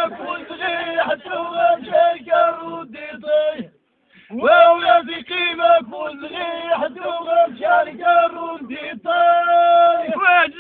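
A man's solo voice singing verses in a chanting style, with long held notes in short phrases and a brief pause about four seconds in.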